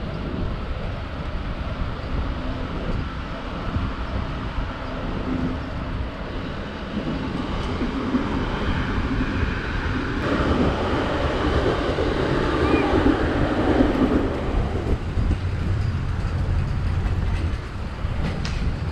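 A commuter train running past on a nearby line, growing louder to a peak about ten to fourteen seconds in, over steady wind rush on a bicycle-mounted microphone.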